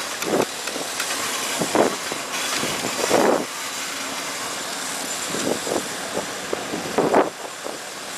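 An engine running steadily under wind noise, with about five brief louder sounds a second or two apart.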